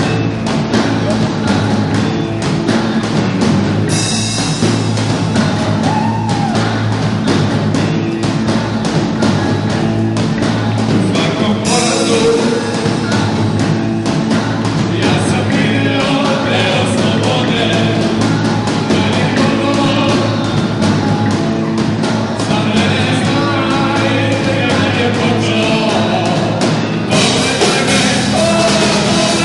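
Live rock band playing: drum kit, electric guitar and bass guitar, with bright cymbal-heavy passages coming in about 4, 12 and 27 seconds in.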